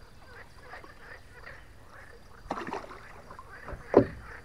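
Water splashing at the side of a boat as a pike is released by hand, with a short splash about two and a half seconds in and a sharper, louder splash near the end.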